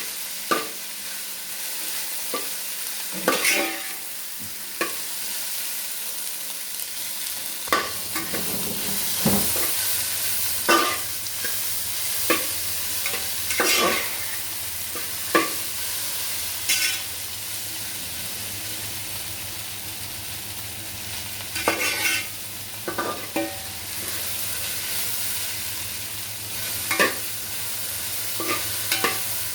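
Chopped jackfruit sautéing in hot ghee in a pan, a steady sizzle with a spatula scraping and knocking against the pan at irregular intervals as the pieces are stirred.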